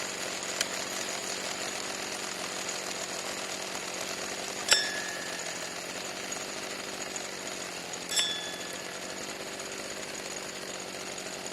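Small two-stroke weed-eater engine running steadily. Two sharp metallic clinks ring briefly, about halfway and about two-thirds of the way through, with a fainter tick near the start.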